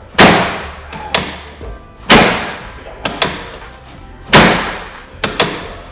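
Chiropractic drop table's pelvic section dropping under an adjustment thrust, three loud thumps about two seconds apart. Each thump is followed about a second later by a pair of lighter clicks.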